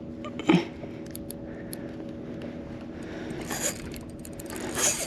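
Handling noise from light spinning tackle while playing a hooked fish from a kayak: a sharp knock about half a second in, small scraping ticks, and two short hissing rushes near the end, over a steady low hum.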